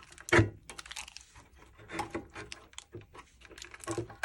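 Handling noise from fitting a subwoofer amplifier into its housing and arranging its cables: a string of short clicks, knocks and crinkles, with a heavier knock about half a second in.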